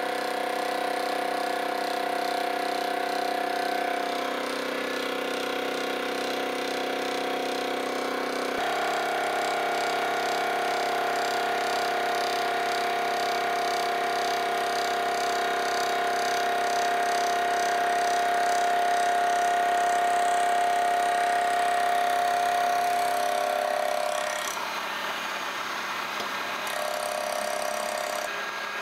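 Vertical milling machine running with a 60-degree dovetail cutter taking a power-fed cut along a cast-iron gib: a steady whine of several tones that shifts abruptly in pitch a few times.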